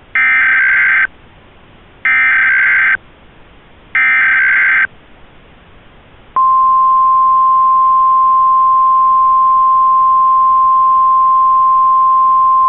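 Emergency Alert System SAME header: three loud one-second bursts of screechy digital data, about a second apart. About six seconds in, the steady single-tone 1050 Hz weather-radio attention tone starts and holds, announcing a tornado warning.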